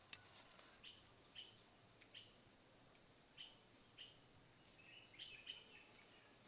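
Faint bird chirping: short, high single chirps about once every half second to second, with a quick run of several chirps about five seconds in.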